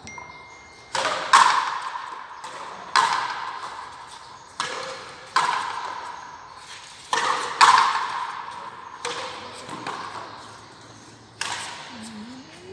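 Frontenis rally: a hard rubber ball struck by tennis-style rackets and smacking against the frontón wall, about nine sharp hits at uneven intervals, some in quick pairs. Each hit rings on in the echo of the walled court.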